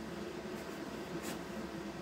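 Steady low hum of a running fan or motor in a small workshop, with a faint click about a second in.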